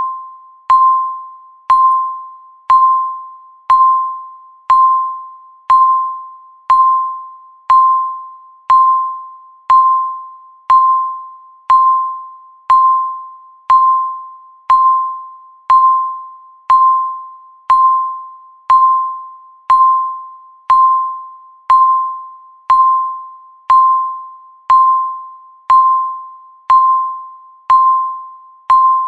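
Countdown timer's electronic beep, one per second, ticking off the seconds: a single steady-pitched tone that starts sharply and fades out before the next.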